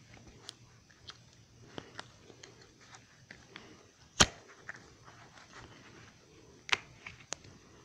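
Plastic Lego bricks being handled and pressed together: scattered light clicks, with one sharp snap about four seconds in and two more near the end.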